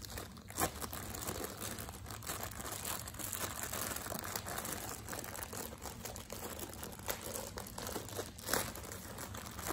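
Clear plastic bag crinkling as hands work it open, a continuous run of small crackles with a louder one near the end.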